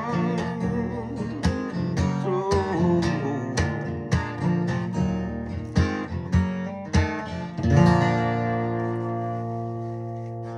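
Acoustic guitar strummed through the song's closing chords. A last chord is struck about three-quarters of the way through and left to ring out, slowly fading.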